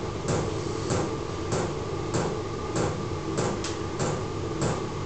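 Small 12 V diesel air heater running, its fuel pump knocking in a steady rhythm, a little under two knocks a second, over the even rush of the heater's fan and burner.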